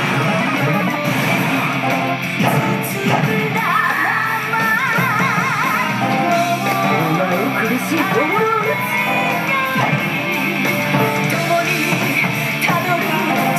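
Pachislot machine's game music: rock-style music with electric guitar and a singing voice.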